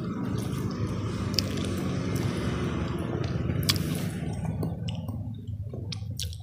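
Close-miked chewing of a mouthful of grilled fish, with wet mouth sounds and a few sharp clicks; it dies down near the end.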